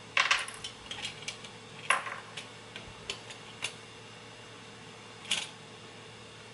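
A pinning tray and other small hard items are handled on a work surface: a series of sharp clicks, knocks and light clatter, loudest near the start and about two seconds in.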